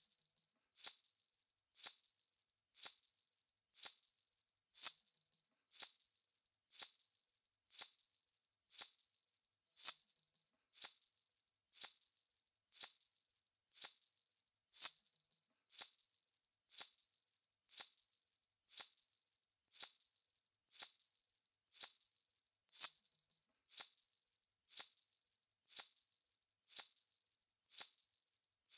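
Payal anklet bells jingling in a slow, even rhythm, about one bright jingle a second, like steps.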